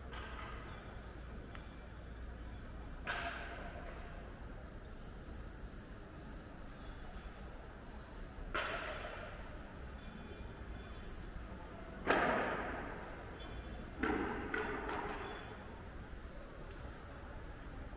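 Small birds chirping over steady outdoor background noise, with four louder whooshing sounds that each fade away over about a second.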